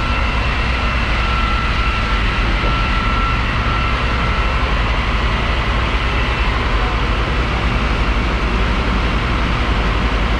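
Fire engine's diesel engine running steadily at pumping speed to drive its water pump, a continuous low rumble with a faint steady whine above it.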